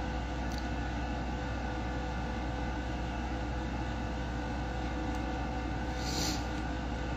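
Steady low room hum and hiss, with one short sniff about six seconds in.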